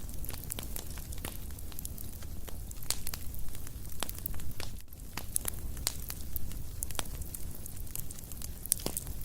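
Fire crackling: irregular sharp pops and snaps over a steady low rumble, breaking off for an instant about halfway through.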